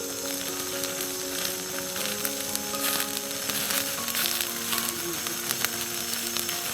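Wood campfire crackling and sizzling, with frequent sharp pops, over soft melodic background music.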